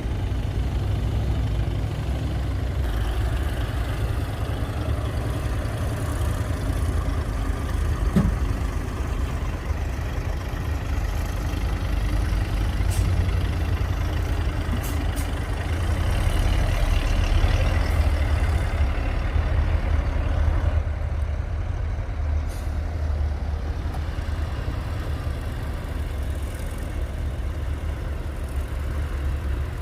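Heavy diesel earthmoving machinery running steadily with a deep low rumble, swelling for a few seconds past the middle, with a few short faint clicks.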